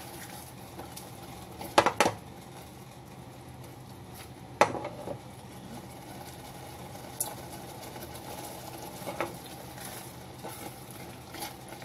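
Sauce being stirred in a stainless steel pot as it thickens, the utensil clinking against the metal a few times. The sharpest clinks come as a pair about two seconds in and once near five seconds, with fainter ones later, over a steady background noise.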